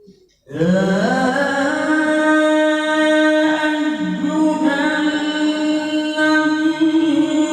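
A male qari reciting the Qur'an in melodic tilawah style. His voice enters about half a second in, climbs, and then holds one long, loud, high note, bending it slowly in ornamented turns.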